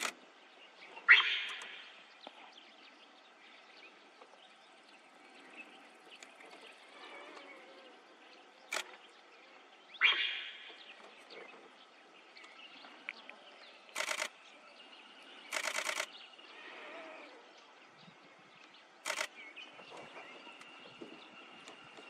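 Quiet forest background with two loud, sharp calls, one about a second in and another about ten seconds in. Later come single clicks and two rapid bursts of camera shutters, one short and one about a second long.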